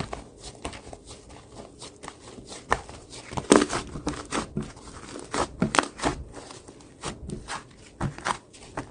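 Slime being squished and pressed by hand, giving irregular sticky pops and crackles, with a louder cluster of pops about three and a half seconds in.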